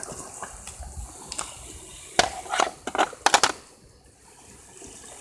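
Maverick Scout RC rock crawler knocking against boulders: a cluster of sharp clatters from its tyres and plastic body on rock, bunched between about two and three and a half seconds in, over the faint lapping of water at the shore.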